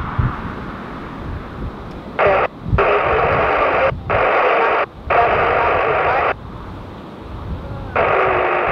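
Air traffic control radio transmissions heard through a scanner: several short transmissions that cut in and off abruptly, about two seconds in, twice more in the middle and again near the end, over a low rumble.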